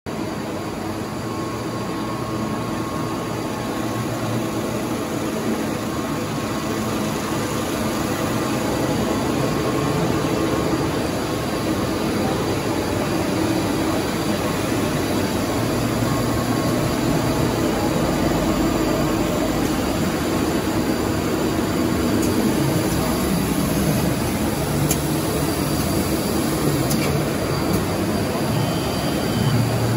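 Steady running noise of sheet-feeding and inspection machinery, a continuous hum and rush with no clear rhythm, mixed into the general din of an exhibition hall.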